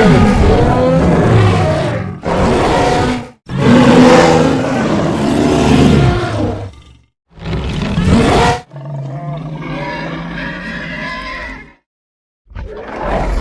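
Monster roar sound effects: a run of loud, separate roars with shifting pitch, then a lower, steadier growl of about three seconds. A short pause follows, and another roar starts near the end.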